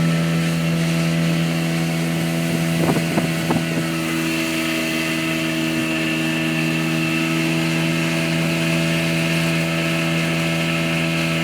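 25 hp Johnson two-stroke outboard motor running at a steady speed while the boat is under way, with wind on the microphone. A brief cluster of thumps about three seconds in.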